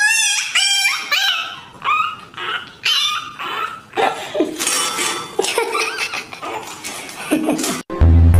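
A puppy yelping and whining in a run of high, wavering cries, one every second or so. Music with a heavy bass beat cuts in just before the end.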